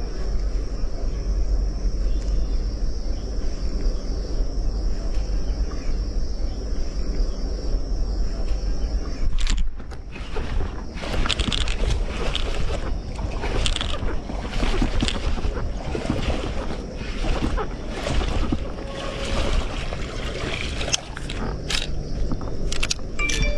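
Wind rumbling on the microphone with a thin, steady high insect drone over it. About nine seconds in the drone stops and irregular clicks, knocks and scrapes take over, the sound of fishing gear being handled.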